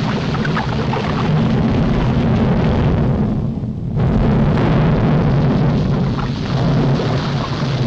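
Cartoon sound effect of a volcano erupting: a continuous heavy rumble with explosive blasts. It eases briefly about three and a half seconds in.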